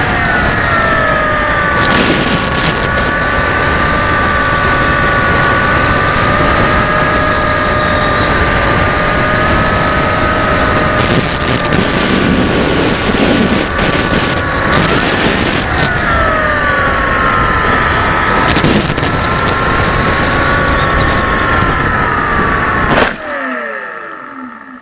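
RC model aircraft's motor and propeller running with a steady whine under heavy wind noise, the pitch dipping and rising with the throttle. Near the end the whine slides sharply down and dies away as the motor is throttled off and spins down.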